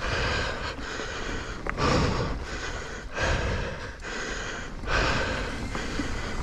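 A mountain biker's heavy breathing while riding, a breath roughly every second or so, over the steady rumble of tyres on a dirt trail.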